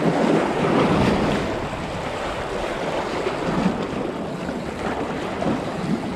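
Small waves washing and foaming against the rocks of a jetty, with wind blowing on the microphone; a little louder in the first second or so.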